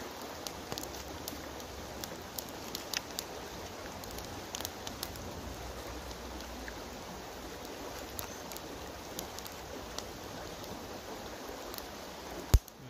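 Steady rushing of a shallow river flowing over stones, with scattered small clicks and crinkles from handling a foil butter wrapper, and one sharp click near the end.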